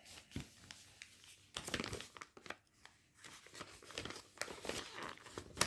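Clear plastic packaging of a cross-stitch kit crinkling and rustling in irregular bursts as the kit's contents are pulled out and handled.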